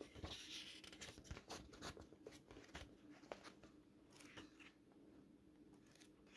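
Faint handling of packaging and books: scattered light taps and clicks, with a short scraping rustle about half a second in and another a little after four seconds.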